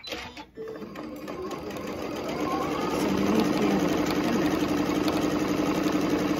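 Electric sewing machine stitching fabric. The motor and needle speed up over the first couple of seconds, then run at a steady, rapid pace.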